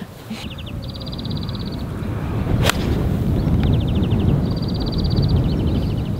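A single crisp strike of a 9-iron on a golf ball, a knockdown tee shot, about two and a half seconds in. Wind rumbles on the microphone, and bursts of fast, high chirping trills come and go.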